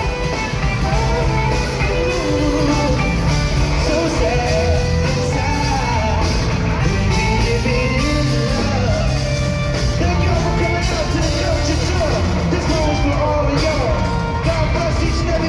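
Live band music with singing, loud and continuous, with gliding vocal lines over a steady bass.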